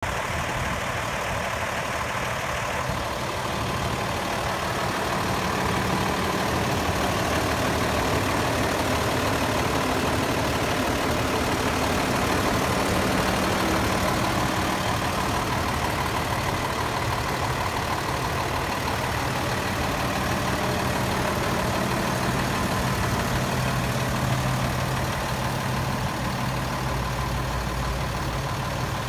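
Freightliner M2 106 truck engine idling steadily, a constant low hum.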